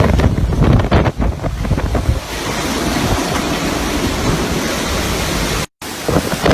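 Strong gusting wind with a steady rushing noise, buffeting the microphone.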